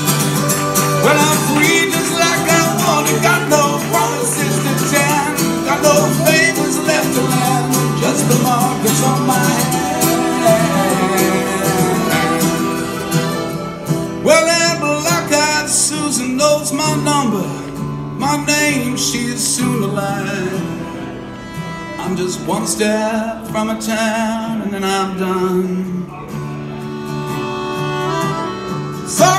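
Live acoustic band playing an instrumental break: acoustic guitar strumming under quick melody lines from a mandolin and an accordion.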